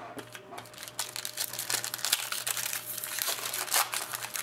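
Foil wrapper of a hockey card pack crinkling as it is opened and handled, starting about a second in and going on steadily in dense irregular crackles.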